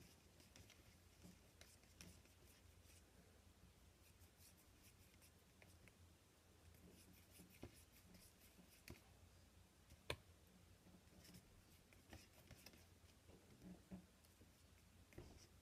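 Near silence: room tone with a few faint, scattered clicks, one a little sharper about ten seconds in.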